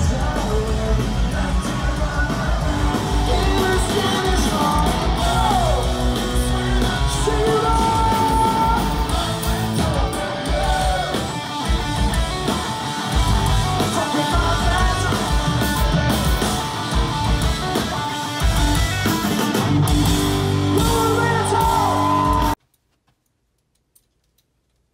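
Live rock band playing with electric guitar and singing, with yelling from the crowd; the music cuts off abruptly near the end into near silence.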